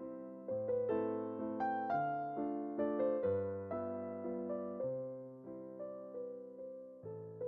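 Background music: a slow solo piano piece, single notes and chords struck about every half second and left to ring out.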